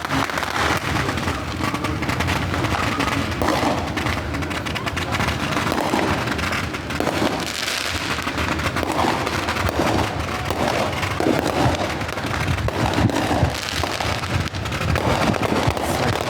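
Fireworks and firecrackers going off continuously: a dense crackle of many overlapping pops and bangs with no pause.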